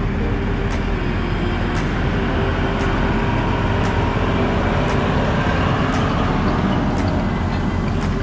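Tractor and hay baler running steadily while baling hay: a constant engine drone with a faint regular click about once a second from the baler.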